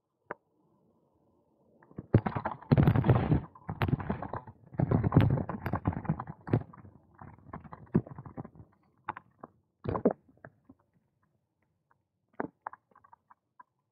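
Bicycle rattling and knocking as it rolls over the paved cycle path, with a low rumble under uneven clusters of sharp knocks. The knocks are densest from about two to six seconds in, then thin out to a few single knocks.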